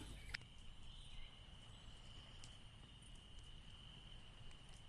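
Near silence: faint room tone with a thin, steady high-pitched tone.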